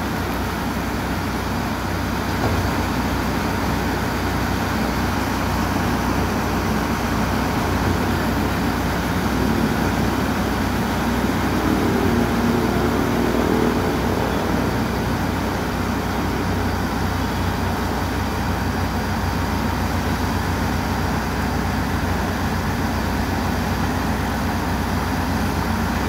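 Heavy diesel machinery running steadily as an Aimix 3.5 m³ self-loading concrete mixer truck turns its drum to discharge concrete down the chute into a trailer concrete pump's hopper. The engine sound grows a little louder around the middle.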